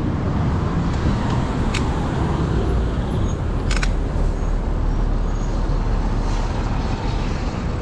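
Steady low rumble of wind buffeting a GoPro microphone while a mountain bike is ridden, with a few sharp clicks.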